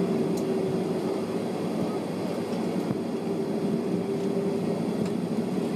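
Jet airliner cabin noise heard from a window seat on the ground: the engines' steady hum with a held mid-pitched tone running through it.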